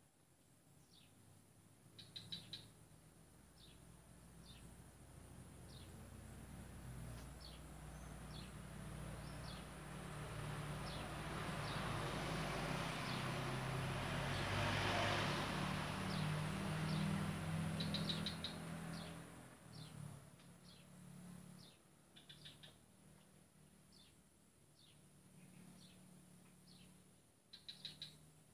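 Small birds chirping in short, repeated clusters, while a passing motor vehicle swells up to be the loudest sound in the middle and then fades away.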